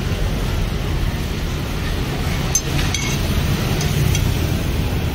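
Steady low rumble of background traffic and street noise, with a few light clinks of a utensil against the pan about halfway through.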